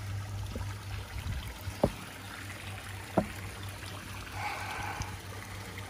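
Koi pond water trickling and running steadily over a steady low hum. Two short knocks come about two and three seconds in.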